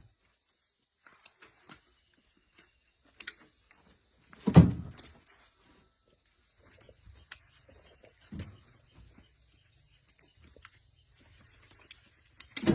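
Things being handled: scattered clicks and knocks, with a heavier thump about four and a half seconds in and another about eight and a half seconds in.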